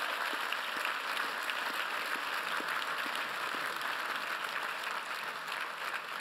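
Large crowd applauding: a dense, steady patter of many hands clapping.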